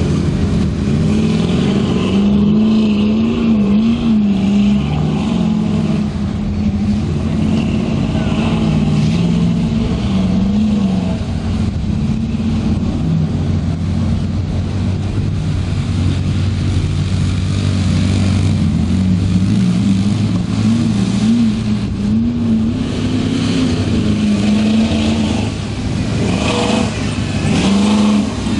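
Engine of a mud-covered square-body Chevy Blazer revving up and down repeatedly as it churns through deep mud and water.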